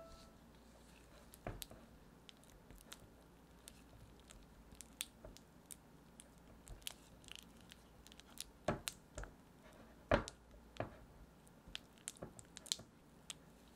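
Silicone spatula pressing and smearing softened butter in a glass bowl: quiet squishing with scattered light clicks and taps of the spatula against the glass. The clicks come more often in the second half, the loudest about nine and ten seconds in.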